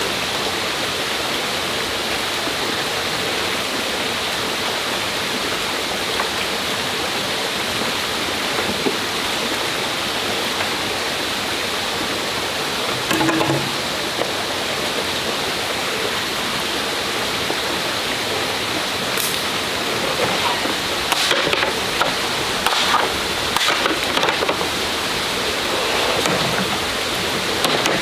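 Steady rushing of a forest stream, with a short knock about halfway and scattered clicks and splashes in the last third.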